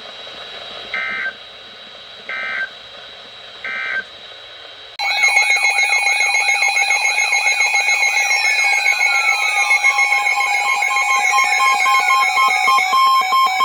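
Emergency Alert System tones: three short data bursts about 1.3 s apart, the end-of-message code after a severe thunderstorm warning. About five seconds in, a loud electronic alert tone starts and runs on, layered warbling tones with repeated falling sweeps.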